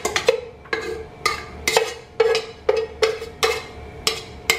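A metal cooking pot being knocked repeatedly, about two sharp knocks a second, each with a short ring, as the last spaghetti is knocked out of it into a baking dish.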